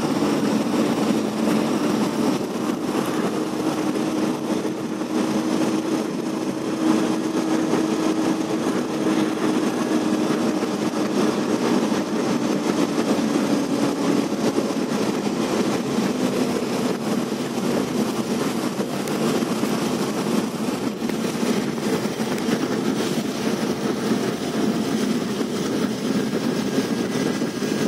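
Steady running noise of a moving passenger train, heard from inside the carriage through an open or rattling window, with a faint hum over the first half.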